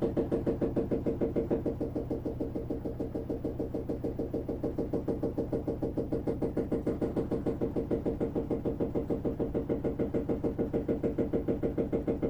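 Washing machine in its spin cycle, running very loud with a steady rhythmic pulsing of about six beats a second over a humming drone.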